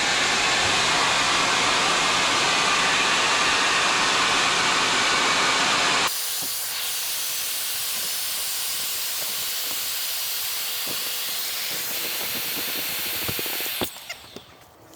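Electric air inflator blowing air into an inflatable RV skirting tube, a steady rushing hiss. It drops abruptly to a quieter hiss about six seconds in and stops shortly before the end.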